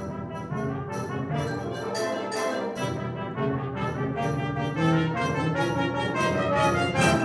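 Live concert band playing, with brass soloists over the band in quick, short, rhythmic notes, and a loud accented chord near the end.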